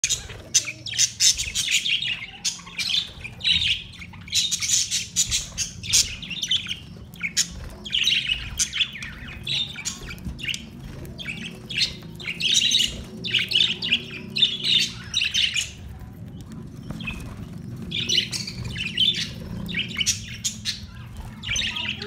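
Budgerigars chirping and chattering in quick, warbling runs of short calls, in bursts with brief pauses between, over a steady low hum.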